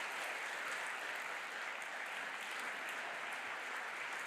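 Audience applause: a large crowd clapping steadily.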